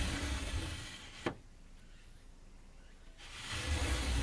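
Wooden-framed paper shoji sliding in its wooden groove, the rubbing noise fading out and ending in a single sharp knock about a second in as the screen stops against the frame. After a quiet spell the sliding noise starts again near the end.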